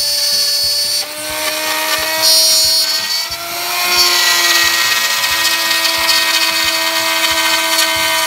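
Wood router running as the spindle of a CNC mill, its 1/4-inch bit carving plywood: a steady high motor whine with the cutting noise dipping and swelling as the bit moves along its path, and faint low ticks about twice a second underneath.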